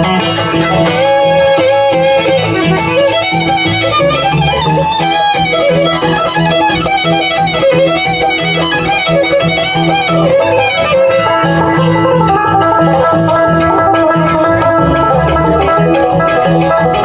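Bluegrass band playing, with fiddle, guitar and banjo together.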